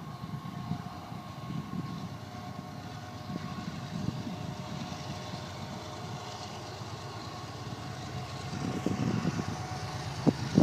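Diesel freight locomotive approaching, a low engine rumble with a faint steady whine, growing a little louder near the end.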